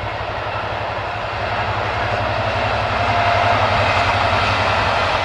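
Freightliner Class 66 diesel locomotive, with its two-stroke EMD diesel engine running with a low rhythmic throb, hauling a train of wagons and growing louder as it approaches.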